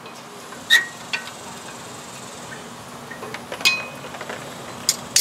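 A handful of sharp metal clicks and clinks, one with a brief ring, as the old front brake pad is pried and worked out of the caliper bracket of a 2007 Nissan Frontier with a screwdriver.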